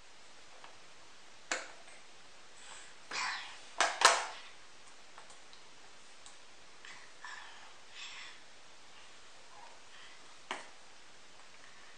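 Quiet handling sounds as a toddler plays with a nasal aspirator's plastic parts, box and card packaging on a wooden floor: scattered rustles and light clicks and knocks, the loudest about four seconds in.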